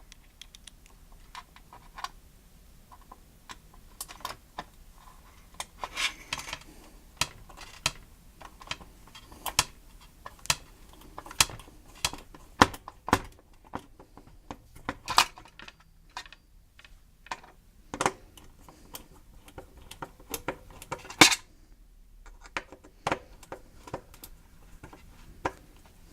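Small metal parts and hand tools clicking and clinking irregularly while a ground (earth) wire is being fastened to a heater's metal case, with a sharper knock about 21 seconds in.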